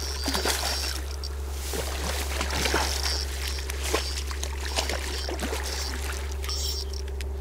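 Water sloshing and trickling with irregular rustles and small knocks, during the retrieval of a carp just shot with a slingshot dart.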